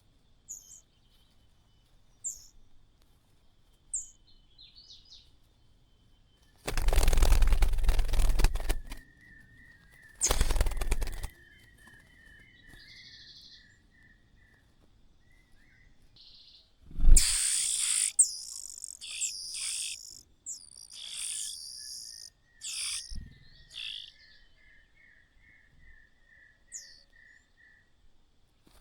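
Small birds at a nest. Two loud bursts of rustling come about seven and ten seconds in. Then, a little past halfway, a sharp knock is followed by a flurry of shrill high chirps from the nestlings, while a steady trill of repeated notes runs behind in two stretches.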